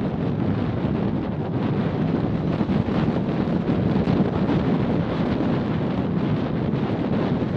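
Steady wind rushing and buffeting over the microphone of a GoPro worn by a macaw.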